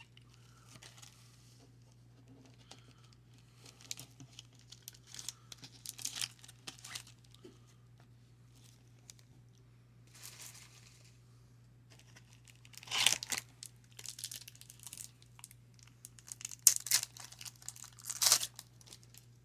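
Trading card pack wrappers being torn open and crinkled by hand: irregular rips and rustles, loudest a little past halfway and again near the end.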